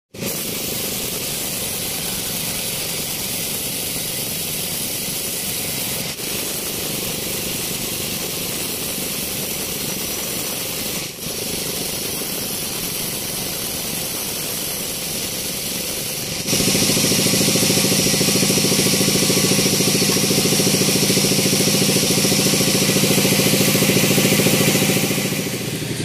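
Band sawmill cutting teak wood: a steady hiss of the blade running through the timber over the machine's running noise. About sixteen seconds in the sound changes abruptly, becoming louder with a steady low hum that has a clear pitch.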